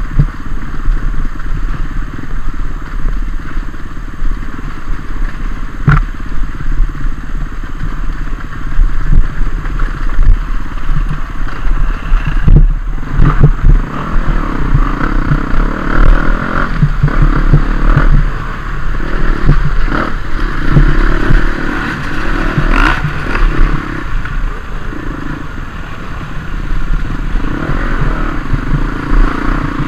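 Dirt bike engine running under load on rough trail, its loudness rising and falling with the throttle, with a few sharp knocks from the bike over the ground.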